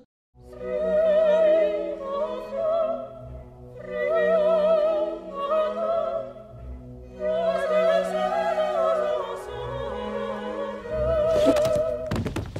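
Operatic singing: a single voice holding long notes with wide vibrato over an orchestral accompaniment. Near the end, a few sharp thuds.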